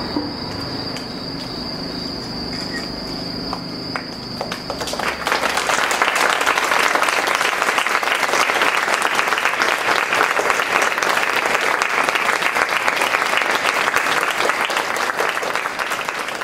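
A steady high trill of crickets, then about five seconds in a crowd breaks into loud applause that keeps going.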